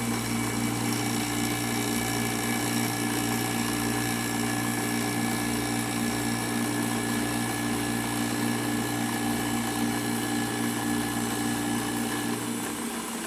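Milling machine running with an end mill taking a light cut, about 30 thousandths deep, into a round tube: a steady hum with several high whines. The low hum drops away shortly before the end.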